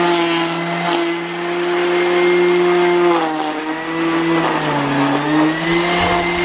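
Electric grass trimmer motor whining at full speed. Its pitch sags briefly about three seconds in and again near five seconds as the cutting line takes load in the grass.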